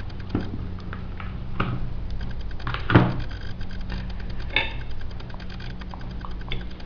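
Light clicks and knocks of a spoon and dish while a baby feeds himself, with one louder knock about three seconds in, over a steady low hum.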